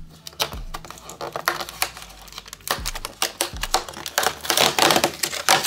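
Cardboard box packaging being pulled and torn apart by hand: a run of dry crackling and ripping clicks, busiest near the end.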